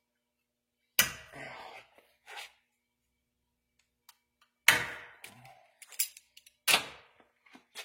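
Hand tools knocking and clanking during work on a seized shift-cable fitting: three sharp hits about a second in, near five seconds and near seven seconds, the middle one the loudest, with a few lighter clicks and rattles between.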